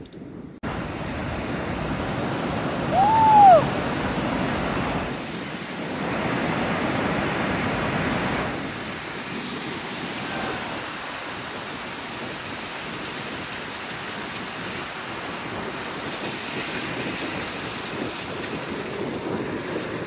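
Ocean surf washing steadily on a beach, swelling and easing, with a short high call that rises and falls about three seconds in and a fainter one near the middle.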